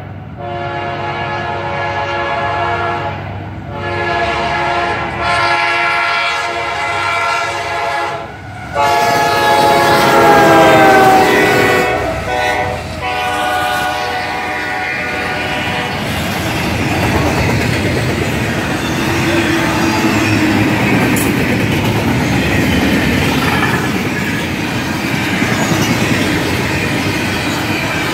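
Freight locomotive's air horn sounding a chord in several blasts as it approaches, its pitch dropping as it passes about ten seconds in. After that comes the steady rumble and clatter of double-stack container cars rolling past on the rails.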